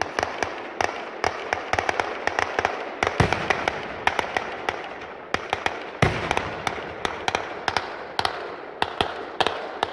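Firecrackers going off in a rapid, irregular string of sharp bangs and pops over a constant crackle, with two heavier booms about three and six seconds in.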